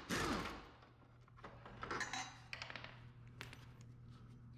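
Pneumatic impact wrench briefly running out an engine bolt at the start, then fading out within about a second. Light metallic clinks and rattles of the bolt and tools follow.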